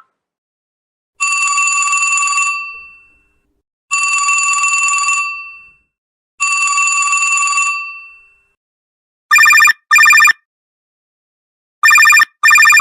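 Two telephone ringtones, one after the other. First come three separate rings about two and a half seconds apart, each a bell-like tone about a second long that fades out. Then from about nine seconds in comes a different, electronic ring in pairs of short, louder bursts.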